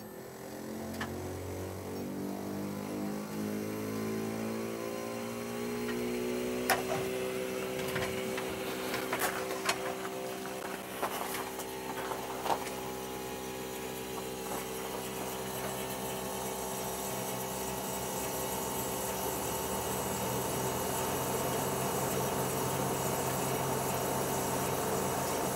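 Outdoor air-conditioning unit starting up: its hum rises in pitch over the first few seconds, then settles into a steady running hum, with a few scattered clicks in between. The unit stands on rubber-capped spring anti-vibration feet, which stop the wooden mount buzzing along with it.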